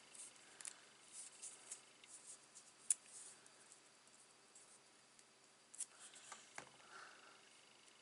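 Faint scratching and ticking of double-sided tear tape being handled, pulled off its roll and torn off, with one sharp click about three seconds in and a few more ticks near six seconds.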